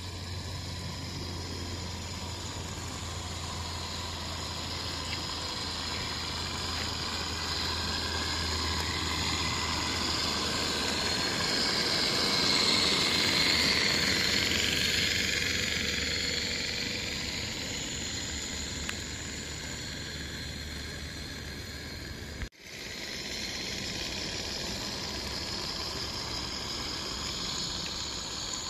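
Regner Climax live-steam garden-railway locomotive running with a steady hiss of steam, growing louder as it draws near, loudest about halfway through, then easing off as it moves away. A short break in the sound comes about three-quarters of the way through.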